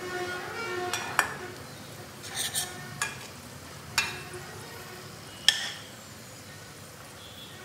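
Steel spoon scooping fried onion slices and dried red chillies out of oil in a stainless steel kadhai, clinking sharply about four times and scraping once, over a faint sizzle of the oil.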